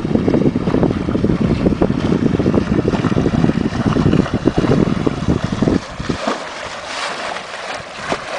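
Wind buffeting the microphone aboard a small sailboat under way, a loud, gusty rumble that eases off about six seconds in to a lighter hiss.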